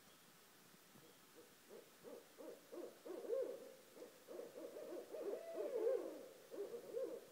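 Barred owls hooting: a run of short hoots starts about a second and a half in and grows louder and quicker, then breaks into overlapping hoots that rise and fall in pitch, stopping just before the end.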